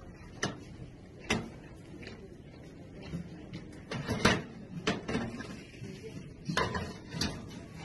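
Silver-rimmed mirror trays knocking and clinking against each other and the shelf as one is lifted and handled: about seven sharp, unevenly spaced knocks.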